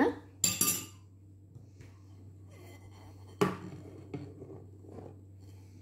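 Flour poured into the stainless steel bowl of a Monsieur Cuisine food processor: a short handling noise near the start, then a sudden soft rush about three and a half seconds in as the flour drops in and slides down the steel, fading over a second, over a faint low steady hum.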